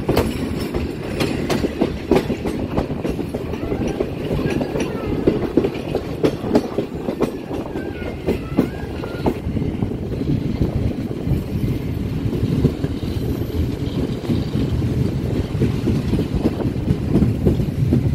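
Awam Express passenger train rolling into a station: a steady rumble of the coaches with the clickety-clack of wheels over rail joints and points. The clacks come thick in the first half and thin out later, as the train slows.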